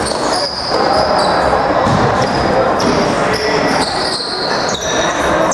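Box lacrosse game in play: knocks of the ball and sticks, short high squeaks and players' voices over a steady arena din.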